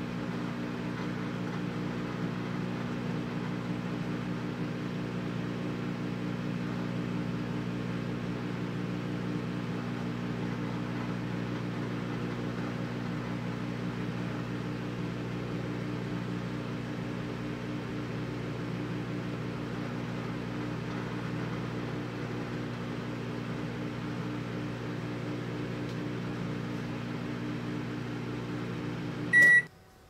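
Microwave oven running with a steady electrical hum. Near the end it cuts off and gives one short, high beep, the signal that the cooking cycle has finished.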